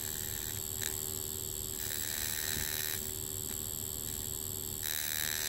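High-voltage arc buzzing and crackling as it runs through magnetite black sand between copper electrodes, over a steady electrical hum. Its hiss changes in strength every second or so, with one short snap about a second in.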